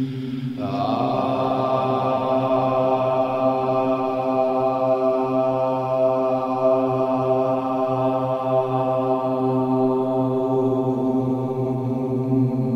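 Low meditation chant: one note held steadily like a drone, with no breaks, brightening about half a second in.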